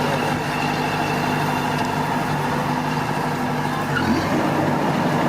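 Engine running steadily at an even speed, with a slight change in its note about four seconds in.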